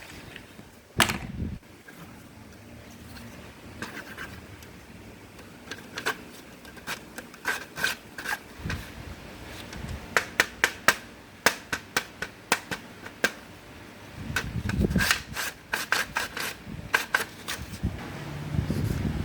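Small plastic toy and fan parts being handled and pried apart: one loud knock about a second in, then a string of sharp clicks and taps mixed with rubbing and scraping.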